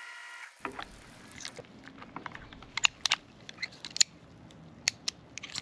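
Carabiner gate being worked open and shut by hand, giving several sharp clicks as it snaps closed; the spring-loaded gate is sticky with gunk and is being loosened by working it in soapy water. A steady hum cuts off about half a second in.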